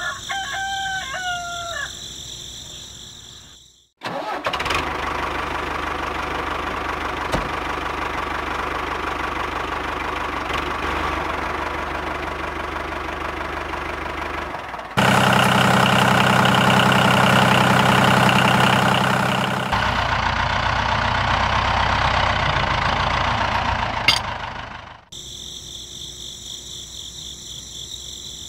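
A rooster crows once over a steady insect drone. About four seconds in, an engine starts and runs steadily with a low rumble. It gets louder for about five seconds in the middle, then cuts off suddenly, leaving the insect drone.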